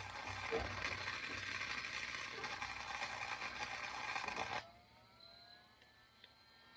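Electric welding arc crackling steadily as a bead is laid, cutting off abruptly about four and a half seconds in when the arc is broken. A faint hum remains after.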